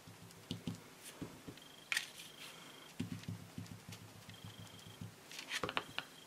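Foam ink dauber tapped rapidly on paper through a thin stencil, a fast run of soft dull taps that pauses briefly and starts again. Near the end the stencil is peeled off the paper with a short rustle.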